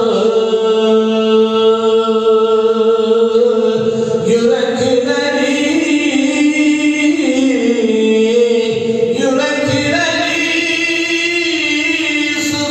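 A man sings an unaccompanied Islamic religious song through a handheld microphone. He holds long notes that slide and are ornamented, with brief breaths between phrases.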